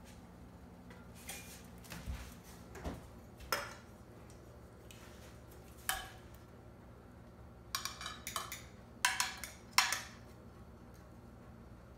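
Metal kitchen tongs clinking and scraping against a glass baking dish as slices of meat are picked out. There are a few scattered clinks and a couple of dull knocks in the first few seconds, then a quick run of sharper, louder clinks from about eight to ten seconds in.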